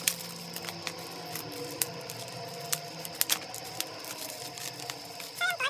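Bubble wrap and plastic packaging crinkling and crackling as a parcel is handled and unwrapped, with irregular sharp clicks throughout. Near the end a cat meows, the call falling in pitch.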